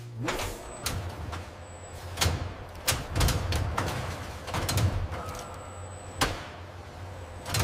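Industrial machinery: a steady low hum broken by a series of sharp mechanical clunks, one every second or two.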